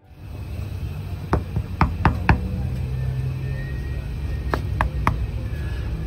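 Sharp clicks of a pickup truck's power-window switches being pressed, four in quick succession and then three more a few seconds later, over a steady low rumble.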